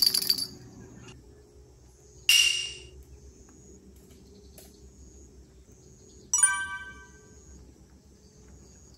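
Added editing sound effects over a faint background: a short noisy hit with a ringing tone a little over two seconds in, then a bright chime that rings out and fades about six seconds in.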